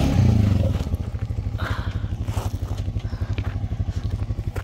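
Honda Rubicon ATV's single-cylinder engine running at low revs, an even fast putter, as the quad rolls slowly down a dirt slope.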